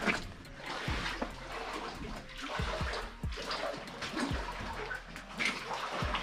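Rubber boots wading through shallow water, splashing and sloshing with irregular footfalls.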